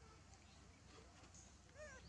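A macaque's single short call, rising then falling in pitch, near the end, over a faint steady background hum.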